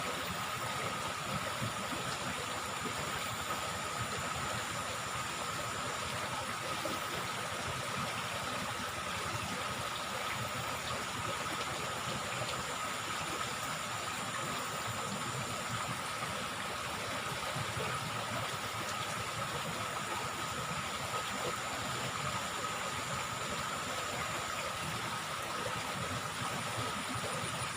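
Steady rushing of flowing river water, with a thin steady high tone running over it.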